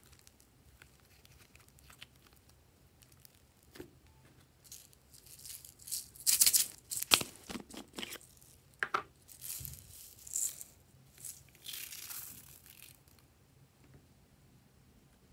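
Sequins in a plastic jar rattling and clicking as the jar is handled and the sequins are shaken out onto slime. The sound is an irregular run of crackly rattles with a few sharp clicks, starting about four seconds in and dying away near the end.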